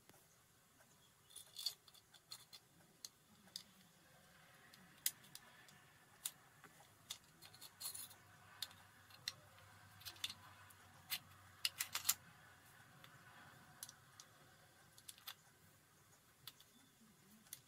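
Disassembled Swiss Arms P1911 air pistol parts handled by hand: scattered metal clicks and taps, with a quick run of clicks about twelve seconds in.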